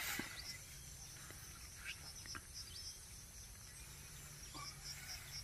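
Faint insects chirping in a high, evenly pulsing trill, with a few soft clicks and taps.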